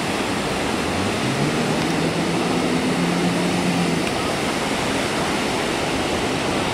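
Waves breaking on the beach make a steady rushing noise throughout. About a second in, an inflatable rescue boat's outboard motor drone rises in pitch as it pushes through the surf, holds steady, then stops about four seconds in.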